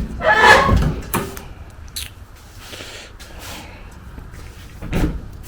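A few knocks and clunks of a steel transmission crossmember being handled and fitted against the car's frame: a loud clunk in the first second, a couple of sharp clicks, and a heavier thud near the end.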